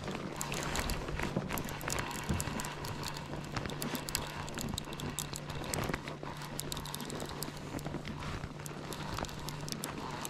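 Conventional fishing reel being cranked to reel in a hooked blue catfish, its gears making a fast, irregular run of small clicks over a low steady hum.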